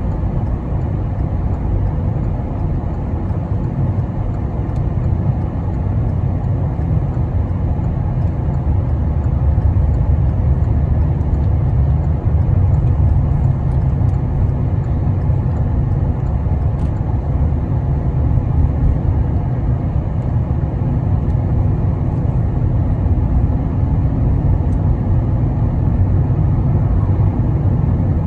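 Low, steady rumble of a moving car heard from inside the cabin: tyre and engine noise, growing a little louder about ten seconds in.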